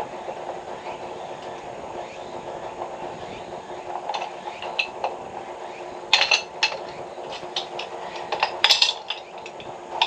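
Sharp metallic clinks and knocks, loudest in two clusters about six and nine seconds in, from tools and pipe parts being handled during a water-pipe repair, over a steady running noise.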